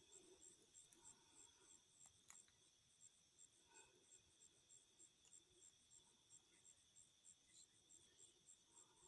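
Faint chorus of night insects, crickets, a steady high-pitched trill with regular chirps a few times a second.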